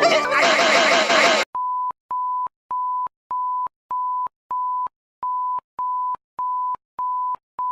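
Electronic alert beeps: short identical beeps on one steady pitch, about one and a half a second, with a slightly longer pause after the sixth. Before them, a loud, dense burst of music and sound effects cuts off abruptly about a second and a half in.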